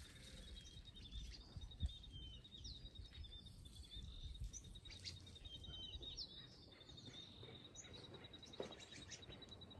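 Faint outdoor ambience: a steady high-pitched trill of rapid, even pulses, with a few short bird chirps over it.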